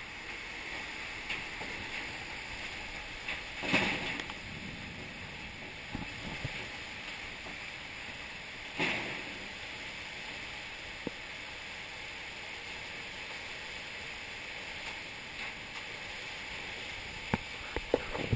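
Heavy monsoon rain pouring down in a high-wind thunderstorm: a steady rush of rain and wind, with two brief louder rushes about four and nine seconds in, and a few sharp knocks near the end.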